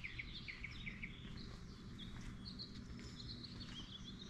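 Faint birds chirping in short repeated calls over a low, steady background hum of outdoor ambience.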